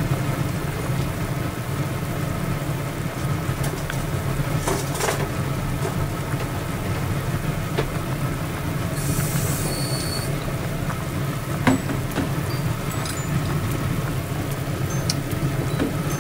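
Kitchen range hood exhaust fan humming steadily over a pot of chicken at a rolling boil, with a few light clicks, one sharper knock about two-thirds of the way through, and a brief high hiss.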